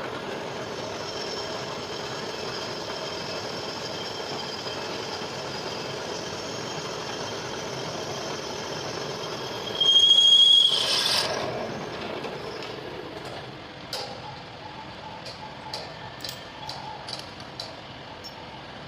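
Metal-cutting machine tool running steadily with a whine, a brief, loud high-pitched squeal about ten seconds in, then quieter running with scattered light clicks.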